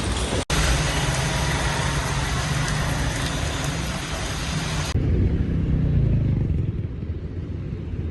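Road traffic noise with vehicles running: a steady din with a low rumble. It drops out briefly about half a second in and changes abruptly about five seconds in to a duller, deeper rumble, as between cut-together street clips.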